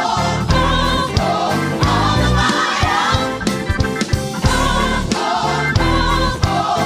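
Gospel choir singing with a live band: massed voices over bass, keyboard and drums with a steady beat.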